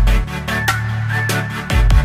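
Electronic background music with a steady beat: deep kick-drum thumps and quick, regular percussion hits over a synth line.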